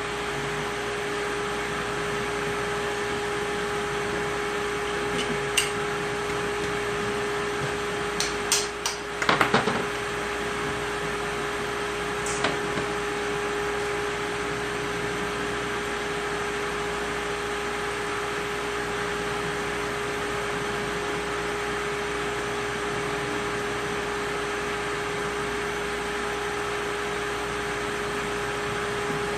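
Steady electric motor hum with a constant pitch, like a shop fan, with a few light clicks and knocks in the first half.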